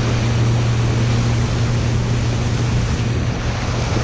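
Motorboat engine running with a steady hum while under way, with water and wind noise over it.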